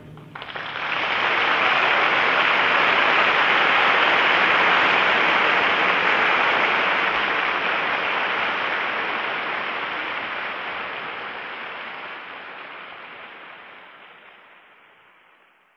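Audience applauding the end of an orchestral performance, heard on a 1939 broadcast recording. The applause swells up right after the final chord, then fades away gradually over the last ten seconds or so.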